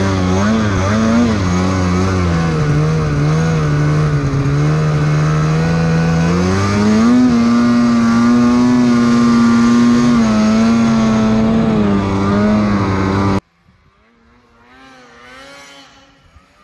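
Snowmobile engine under throttle in deep powder, its pitch rising and falling with the throttle and then holding steady at high revs. About 13 seconds in it drops away suddenly, leaving a distant snowmobile engine heard faintly.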